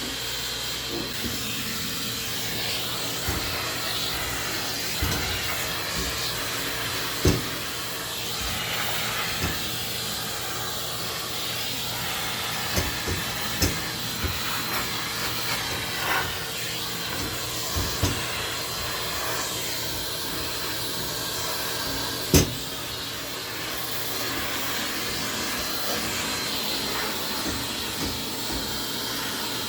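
Vacuum cleaner running steadily, with a few sharp knocks, the loudest about seven seconds in and again about twenty-two seconds in.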